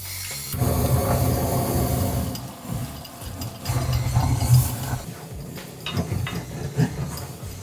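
Butane kitchen blowtorch flame running onto sauce-coated chicken in a frying pan, with a wooden spatula stirring and scraping through the sauce. The flame comes up about half a second in, and there are a few knocks of the spatula against the pan in the second half.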